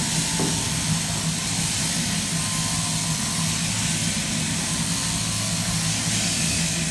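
Sheep-shearing machine running steadily: the overhead-driven handpiece hums and hisses as its cutter works through the fleece.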